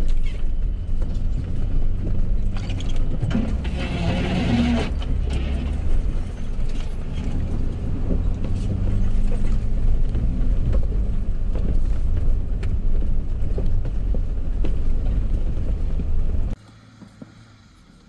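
Four-wheel drive's engine running at low speed as it crawls up a rocky track, with knocks and creaks from the vehicle working over the rocks. About sixteen and a half seconds in the sound cuts to much quieter.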